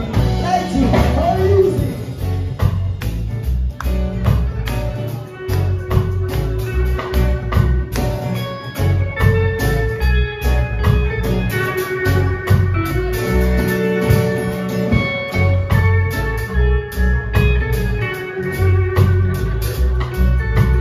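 Live band playing an instrumental passage: strummed acoustic guitar and electric guitar over a drum kit's steady beat. A lead line of long held notes comes in about halfway through.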